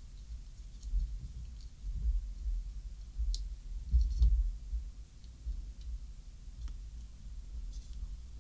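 Scattered light clicks and taps as small parts of a smart door lock are handled and fitted together, over dull low bumps from the handling.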